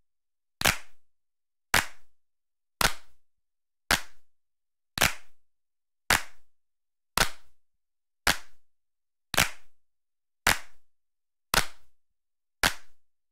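A sharp percussive click or clap repeating evenly about once a second, each hit dying away quickly, with silence in between.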